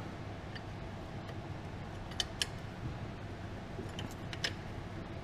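A few light metallic clicks and clinks, two close together midway and two more shortly after, over a steady low background noise.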